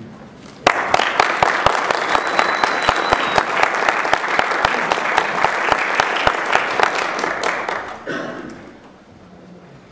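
Audience applauding, breaking out suddenly about a second in with many sharp individual claps, then dying away near the end.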